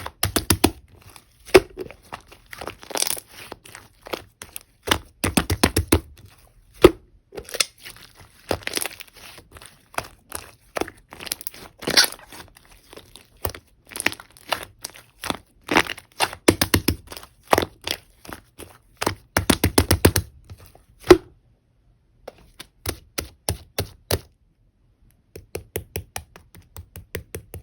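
Clear slime being squeezed, stretched and pressed by hand, giving dense runs of sharp clicks and crackling pops. Near the end the clicks turn sparser and come in quick, evenly spaced series.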